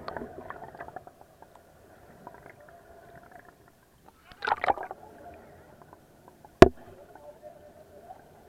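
Muffled water sloshing and gurgling around a camera filming at and below the surface. A splashy burst comes a little past halfway, then one sharp knock about two-thirds of the way through.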